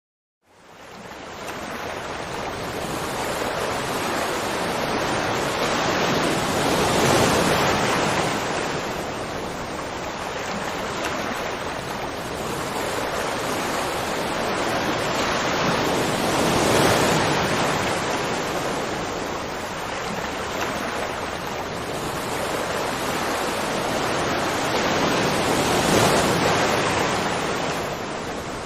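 Rushing water, fading in from silence about half a second in, then running as a steady roar that swells and eases roughly every nine or ten seconds.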